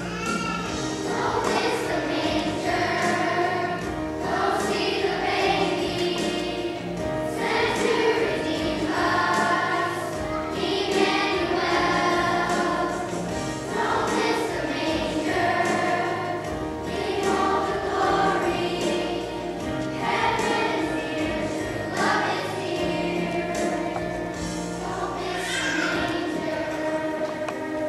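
Children's choir singing a song in unison over instrumental accompaniment.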